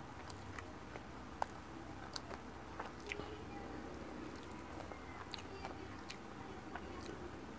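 Crispy fried milkfish (bangus) being pulled apart by hand and chewed, heard as soft, scattered crackles and small clicks, with one sharper click about a second and a half in.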